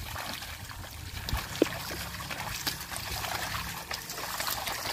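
A pair of bullocks pulling a wooden plough through a flooded, muddy rice seedbed: soft splashing and sloshing of water and mud from hooves and plough as the field is puddled for sowing, with scattered small clicks and a brief sharper one about a second and a half in.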